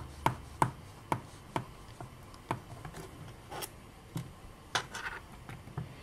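A precision screwdriver turning out the small screws of a MacBook Pro's aluminium bottom case: a string of small, sharp, irregular clicks, quicker over the first second and a half, then sparser.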